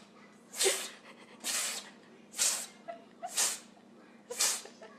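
An animal snorting or sneezing out through its nose: five sharp, breathy blows about a second apart.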